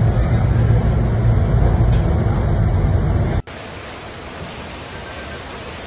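Storm wind buffeting the microphone with driving rain, a loud low rumbling rush. About three and a half seconds in it cuts off abruptly to a quieter, steady hiss of wind and rain.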